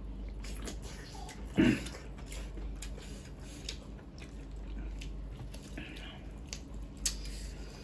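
Close-up wet eating sounds: the mouth clicks and smacks of chewing, and the squelch of bare fingers working mutton curry and rice, as a run of small sharp clicks, with one short louder sound about a second and a half in.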